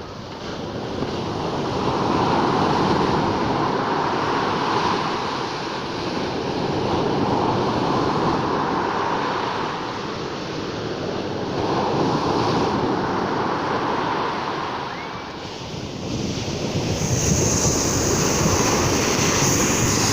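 Sea waves breaking and washing up the shore, the surf swelling and falling back about every four to five seconds. Near the end a steady high hiss joins in.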